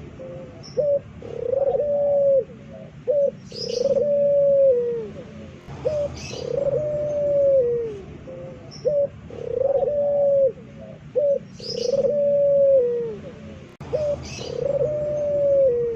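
A puter pelung (domestic collared dove) cooing loudly and over and over. Long drawn-out coos droop in pitch at the end, about six in all, roughly every two and a half seconds, with short clipped notes between them. Brief high chirps from another bird come in a few times.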